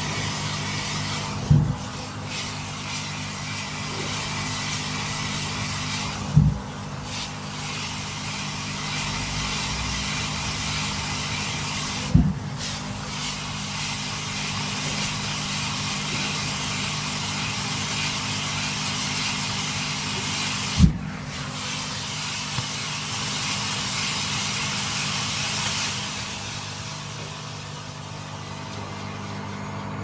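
Volcano firework fountain burning inside a washing machine drum: a steady spraying hiss over a low hum, broken by four sharp bangs spread through, each with a brief dip in the hiss. The hiss dies away near the end as the fountain burns out.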